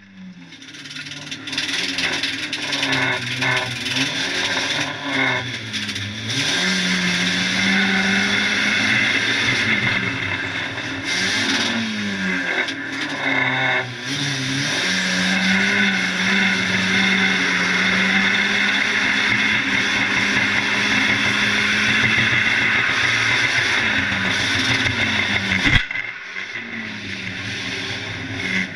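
A 1600 cc banger race car's engine heard from inside its stripped-out cabin, revving up and down with the throttle and then held at high revs for long stretches. A sharp knock comes near the end, after which the engine note drops lower.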